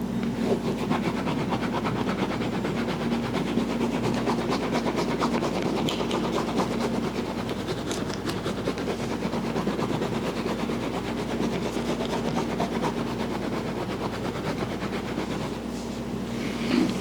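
Fast, continuous rubbing and tapping of a head massage, ticking evenly many times a second over a steady low hum.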